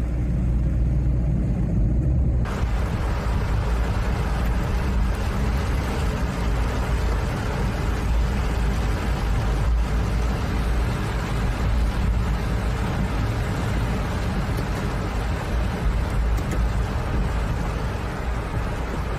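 A deep, low rumble for the first couple of seconds. Then an abrupt change to a car driving in heavy rain, heard from inside: a steady wash of rain on the glass and roof with tyre and road noise.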